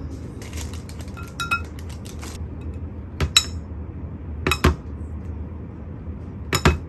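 Tableware clinking. There is a light clink with a brief ringing tone about a second and a half in, then three sharp knocks of dishes or utensils, spaced a second or two apart, over a steady low hum.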